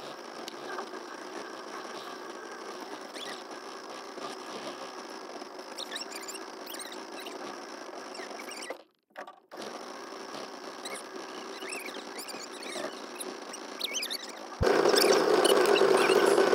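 Small fishing boat's motor running with a steady high-pitched whine that sounds like a buzzing fly. It cuts out briefly about nine seconds in, and near the end it becomes much louder.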